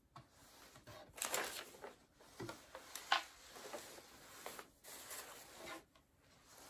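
Gray flat-pack furniture panels being handled and shifted on carpet: irregular soft scrapes and rustles, with a sharper knock about three seconds in.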